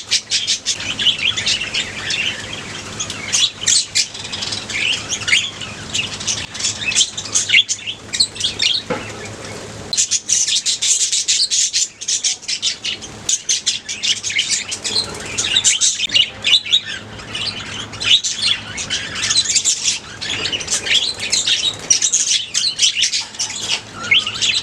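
A colony of budgerigars chirping and chattering together: many short, high chirps overlapping in a dense, unbroken chorus.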